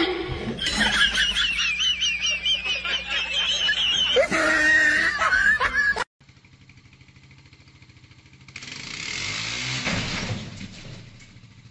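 Loud, high-pitched laughter with a wavering pitch, cut off suddenly about six seconds in. Then a faint outdoor background with a swell of rushing noise lasting about two seconds.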